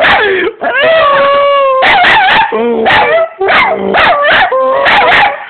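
A dog howling in a series of drawn-out calls that slide up and down in pitch, with short breaks between them.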